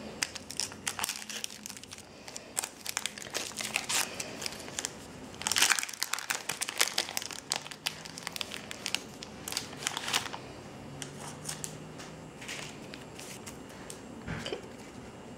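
Foil wrapper of a Pokémon booster pack crinkling as it is torn open and the cards are pulled out, with a louder burst of crinkling about halfway through.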